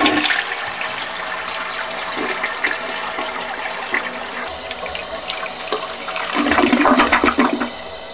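Toilet flushing: a steady rush of water that swells louder about six seconds in, then fades away near the end.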